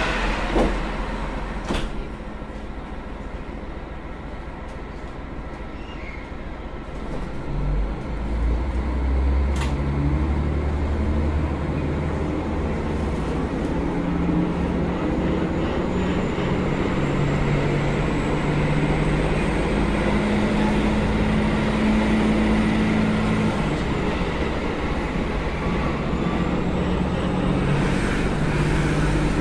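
JR Hokkaido KiHa 201 series diesel railcar: after a quieter stretch with a few clicks, the diesel engines open up about eight seconds in and the railcar gathers speed, its engine note stepping up and climbing in pitch over a steady running rumble.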